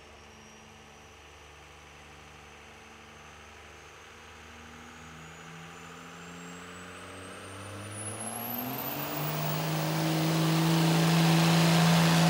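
A pulling vehicle's engine winding up as it hooks to the sled and starts a pull: its pitch climbs and it grows steadily louder, reaching full throttle about nine seconds in, with a thin high whine rising alongside.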